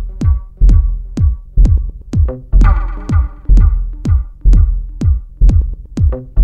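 Electronic music driven by a drum machine: a deep kick drum drops in pitch on each beat, about twice a second, with sharp clicks on top. A synth chord sounds about two and a half seconds in.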